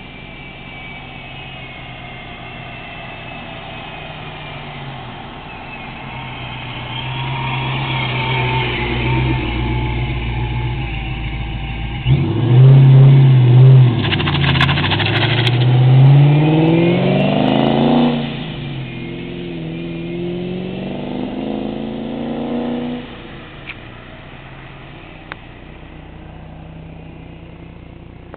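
Supercharged 1996 Mustang Cobra's V8, not yet tuned on its new 8-rib T-trim supercharger setup, coming closer, then suddenly much louder about twelve seconds in and revving hard with the pitch climbing. A shift comes about eighteen seconds in, then a second pull, and the sound fades away.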